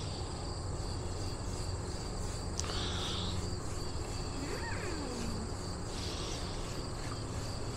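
Steady chorus of insects shrilling, with a buzz that swells and fades about every three seconds, and a faint brief sliding sound about halfway through.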